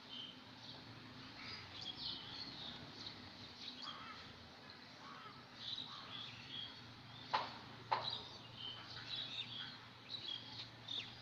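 Faint bird chirps and calls scattered throughout, over a low steady hum, with two sharp clicks about half a second apart a little past the middle.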